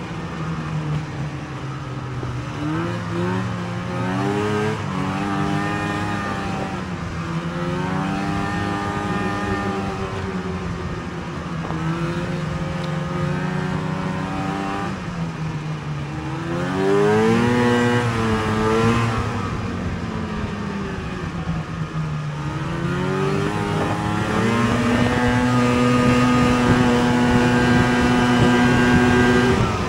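Snowmobile engine running along a trail, its pitch climbing and dropping again and again with the throttle. The revs climb sharply about halfway through, then hold at a steady higher pitch over the last few seconds, where it is loudest.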